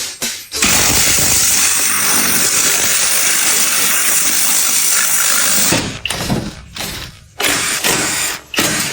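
A loud, steady hissing rush that starts about half a second in and cuts off about six seconds in, with rhythmic hits before and after it.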